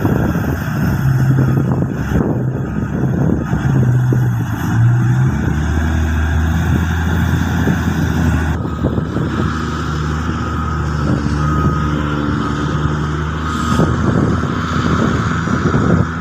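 Large mining excavator's diesel engine running under load, its low drone shifting in pitch a couple of times as the machine works, with a few short knocks.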